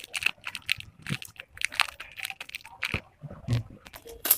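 Thin clear plastic bag crinkling and crackling irregularly as fingers turn it over.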